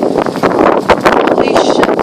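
Strong gale wind blasting across the microphone: loud, gusty buffeting with constant crackle.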